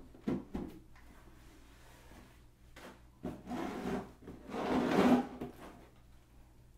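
Rubbing and scraping handling noises: a couple of short knocks near the start, then two longer rubs about halfway through, the second the loudest.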